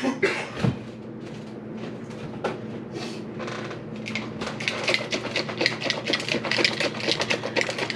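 Rapid, irregular clicking from a small object being worked in the hands. A few scattered clicks, then a quick run of several clicks a second from about halfway through.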